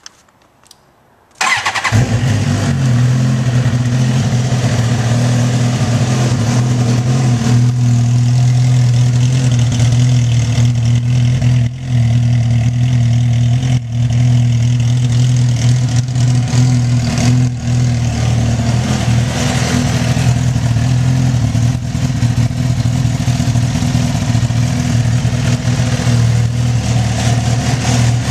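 2007 Suzuki GSX-R1000's inline four-cylinder engine with Jardine straight-pipe exhaust starting about a second and a half in, after a few faint clicks, then idling loud and steady through the open pipes.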